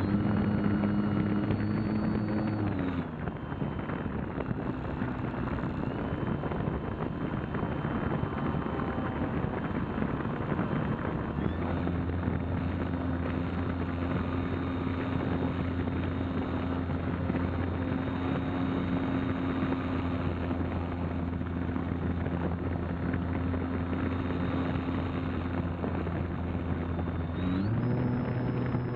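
RC model plane's motor and propeller running, heard from a camera on board with wind rush over the airframe. The drone and whine drop in pitch about three seconds in and stay weak for a stretch. About twelve seconds in a steady drone returns, and its pitch rises near the end.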